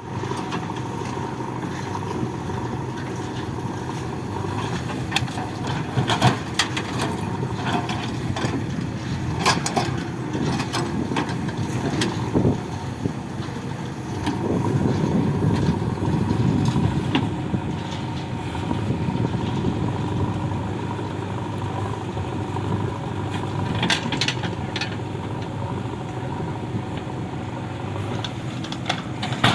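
Diesel earth-moving machinery running steadily, with scattered clanks and knocks as mud is loaded; the engine grows louder and rougher for a few seconds around the middle.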